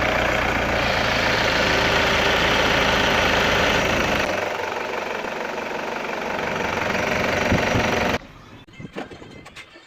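Toyota Prado 1KD four-cylinder turbodiesel running at idle just after starting, its belt drive carrying the noise that is traced to the fan belt adjuster (tensioner and bearing). The sound cuts off abruptly about eight seconds in.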